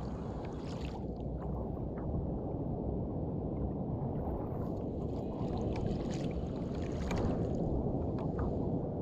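Water washing and sloshing around a sit-on fishing kayak on the open sea, with a steady low rumble and a few light splashes.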